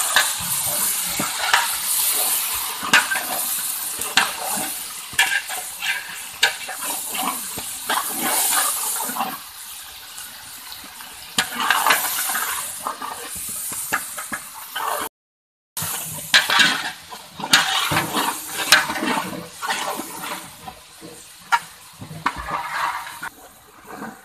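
Yak meat and fried onions sizzling in a large aluminium pot, with a metal ladle repeatedly scraping and clinking against the pot as it stirs. The sound cuts out for a moment about fifteen seconds in.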